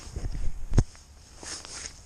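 Clothing rustling and bumping as fishing line is pulled up through an ice hole hand over hand, with one sharp knock a little under a second in.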